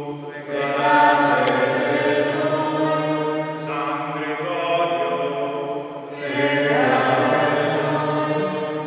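A man's voice chanting a liturgical text in three long phrases of sustained, held notes.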